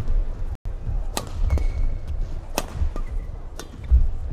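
Badminton doubles rally: rackets striking the shuttlecock with sharp hits about a second apart, over low thuds.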